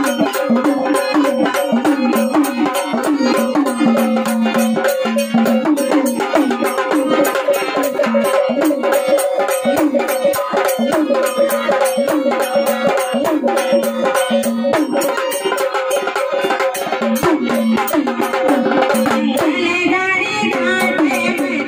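Instrumental stretch of a Marathi devotional jagran song: a melody over a steady held tone, driven by fast hand-drum and rattling percussion. Near the end the sound changes, with brighter, wavering higher parts coming in.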